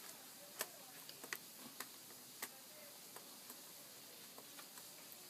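Irregular light plastic clicks and taps from a netbook's keyboard being pressed down and snapped into place.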